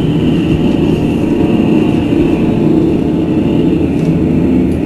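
Electroacoustic sound-art performance: a loud, dense, steady low rumbling drone with a thinner high band above it.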